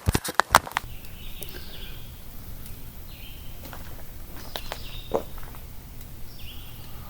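Woodland ambience: a bird chirps about four times, short high calls a second or two apart, over a low steady rumble. A few sharp clicks in the first second are the loudest sounds.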